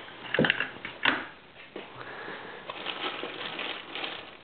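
A few sharp knocks as a glass wine bottle is set into the seat of a cast-iron floor-standing hand corker, followed by a couple of seconds of soft, irregular rustling handling noise.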